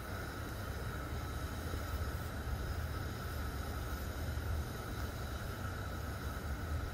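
Propane burner of an ammo-can fire pit burning steadily under lava rock, a constant hiss with a low rumble.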